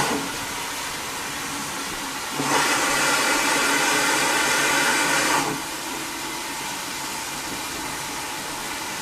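Steam locomotive standing with steam hissing; about two and a half seconds in a louder rush of escaping steam starts, lasts about three seconds and cuts back to a steady hiss.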